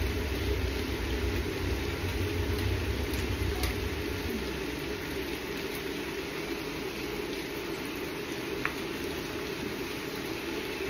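Large pot steaming on the hob: a steady low rumble and hiss that eases a little about four seconds in, with a couple of faint clicks.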